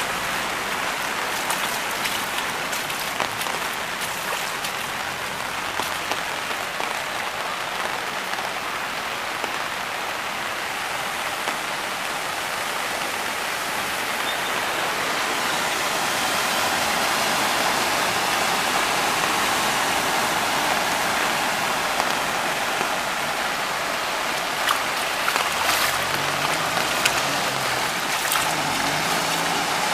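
Heavy rain falling steadily on a flooded street, an even hiss with a few sharp taps. Near the end the low hum of a city bus's engine comes in as the bus drives through the floodwater.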